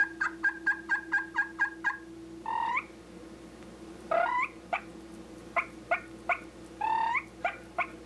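A friction slate turkey call worked by hand, imitating hen turkey tree talk: a quick run of short clucks, about five a second, for the first two seconds, then a few drawn-out yelps with single clucks between them. A steady low hum runs underneath until about two and a half seconds in.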